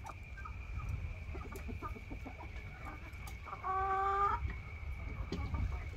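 Chickens clucking in short scattered calls, with one longer, drawn-out pitched call a little past halfway. A steady high tone and a low rumble run underneath.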